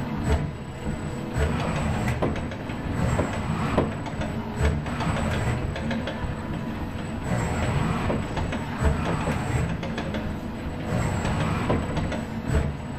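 ABB industrial robot arm moving back and forth between its paint cups and the canvas: a steady low rumble with scattered light clicks and knocks, and a faint high whine that comes and goes.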